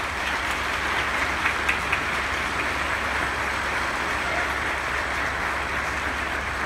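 Audience applauding: dense, steady clapping that holds at an even level.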